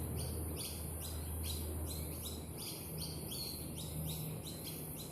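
Birds chirping: short high chirps repeated quickly, about three a second, over a low steady hum.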